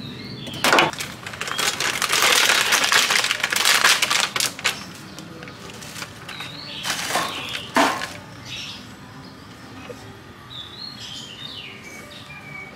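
Two bursts of scraping and rustling, the first lasting about four seconds and the second shorter, ending in a sharp click near the middle: handwork on fruit and wrappings at a food cart. Small birds chirp faintly between them.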